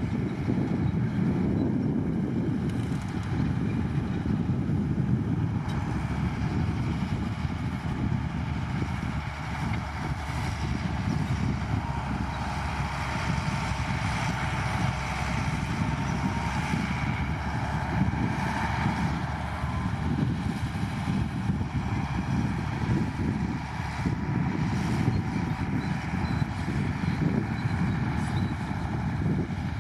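Heavy diesel earthmoving machinery running steadily, loudest in the low range, with a continuous mid-range hum over it.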